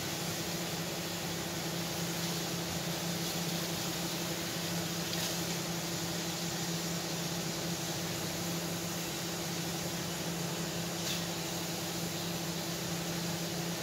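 Kitchen range hood fan running steadily: a motor hum under an even rush of air, with a couple of faint light clicks as cooked chicken is lifted out of the wok.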